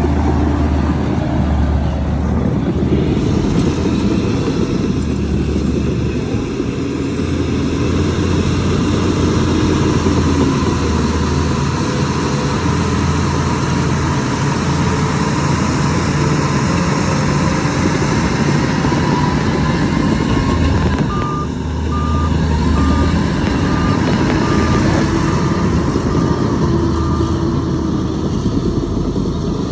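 Heavy diesel machinery engine running steadily under load. About two-thirds of the way through, a reversing alarm beeps about eight times, roughly twice a second.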